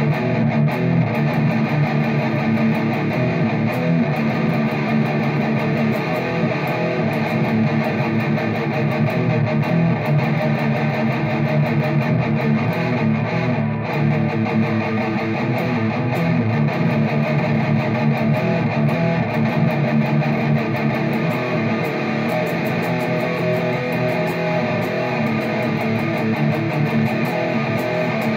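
ESP LTD M-400 electric guitar played through a Joyo Zombie amp head, picked without a pause at a steady level.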